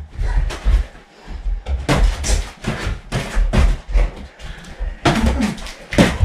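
Boxing gloves landing punches on gloves, arms and body during sparring, with feet thudding on the floor: a rapid, irregular run of thuds and slaps, a few a second.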